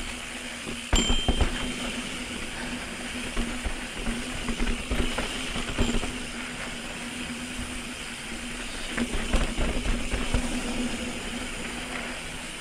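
Mountain bike rolling down a rough, rocky trail: tyres rumbling with knocks and rattles as it drops over rocks, loudest about a second in and again in the middle and near the end, over a steady drone.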